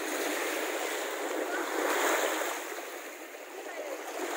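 Small waves washing up onto a sandy beach, a steady wash that swells about two seconds in and again near the end.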